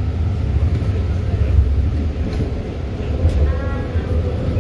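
BART Alstom/Bombardier railcar in motion, heard from inside the car: a steady low rumble, with a brief higher tone about three and a half seconds in.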